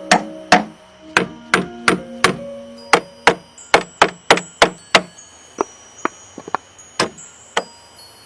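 Sharp wooden knocks struck by hand in woodworking, a quick uneven run of about two to three a second that slows and thins out after about five seconds. Faint music plays beneath.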